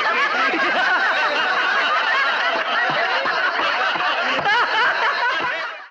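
A crowd of people laughing together, many voices overlapping, fading out near the end.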